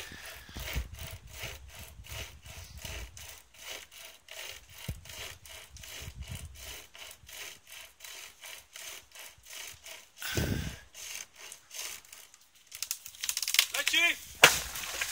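Homemade flexible survival saw rasping back and forth through a thin tree trunk, in a steady rhythm of about three or four strokes a second. About ten seconds in there is a dull thud. The strokes then speed up, and near the end come louder sharp cracks and creaks as the wood gives way.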